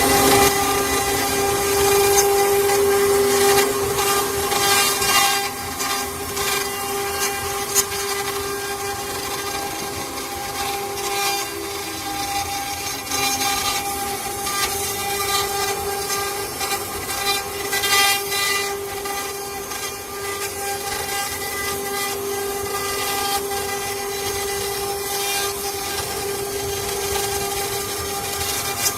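CNC wood router running, its spindle giving a steady high whine while the bit cuts wood, with rough cutting noise rising and falling.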